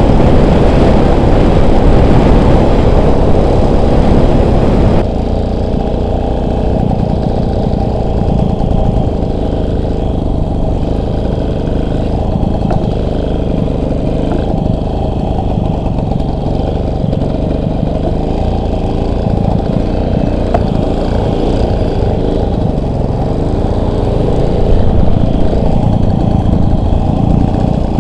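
Motorcycle engine running while riding. About five seconds in the sound changes abruptly, from louder with more hiss to a lower, steadier engine note.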